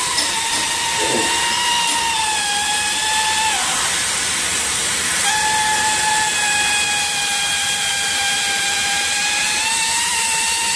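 Hot air PVC welding machine running: a steady hiss of hot air under a motor whine whose pitch drifts slightly. The whine cuts out a few seconds in and starts again about two seconds later.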